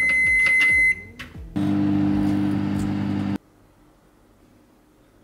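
DeLonghi microwave oven beeping as its buttons are pressed, one long high beep ending about a second in, then starting up and running with a steady low hum that cuts off suddenly after about two seconds.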